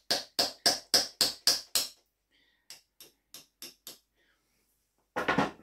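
A hammer tapping lightly on the back of a knife blade held against the end of a hazel stick, driving the blade in to split the outer wood away. The taps come at about three to four a second: a quick run of sharper taps, then after a pause a few fainter ones. A short, louder noise comes near the end.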